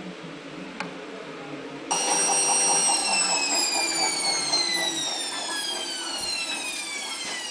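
An electric motor's whine that cuts in suddenly about two seconds in and then slides steadily down in pitch, growing slightly quieter as it winds down.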